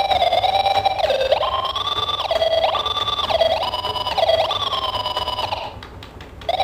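A siren-like electronic tone switching back and forth between a low and a high pitch with quick slides between them, roughly once a second, cutting out briefly near the end.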